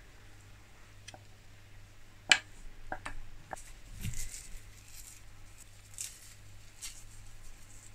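Kitchen handling sounds as soup is served into a ceramic bowl: a sharp clink about two seconds in, a few lighter clicks after it, then soft, scratchy rustles.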